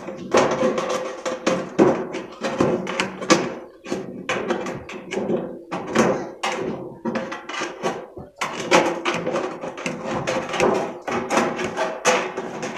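Aviation tin snips cutting thin sheet-metal gutter: a rapid, uneven series of sharp clicking snips as the blades close through the metal, trimming a folded corner.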